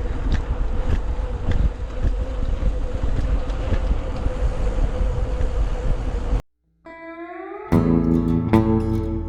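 Wind rushing over the microphone of a moving bicycle, with a faint steady hum and light ticks. About six and a half seconds in it cuts out, a short falling tone glides past, and guitar music starts.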